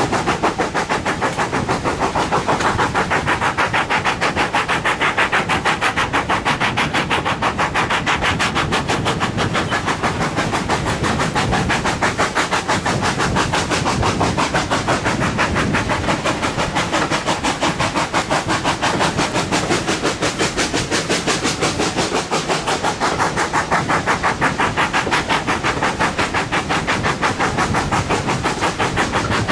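Train on the move behind an ex-GWR 0-6-0 pannier tank steam locomotive, heard from an open carriage window: a fast, even beat of exhaust chuffs over the running noise of the coach wheels and the wind.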